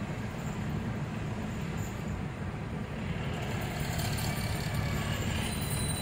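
Steady low rumble of engine and road noise from inside a moving vehicle, growing a little louder after about three seconds.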